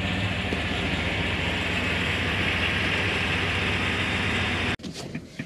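Steady rushing background noise with a low hum, cutting off abruptly near the end, followed by a few faint clicks.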